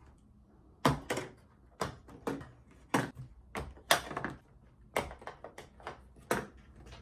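Shipping box being opened by hand: about a dozen sharp, irregular clicks and knocks as the packaging is worked open.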